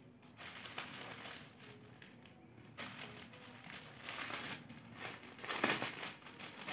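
Cloth rustling and crinkling as a suit fabric is handled, in several soft swells.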